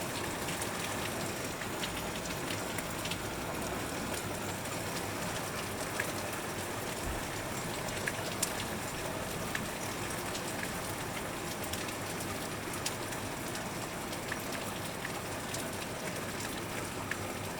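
Heavy rain, a steady hiss with scattered sharp drops tapping on a window.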